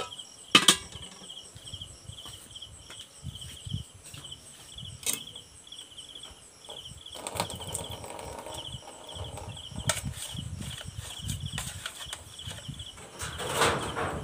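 A cricket chirping steadily in quick pulses, about four a second. A sharp click comes about half a second in, the loudest sound, with another around five seconds in, and low knocks and rustles of handling follow in the second half.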